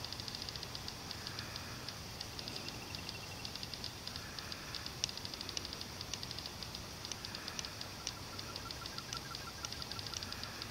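Night insects calling: a steady, dense run of fast, high-pitched ticking, joined about eight seconds in by a short trill of even pulses, roughly eight a second.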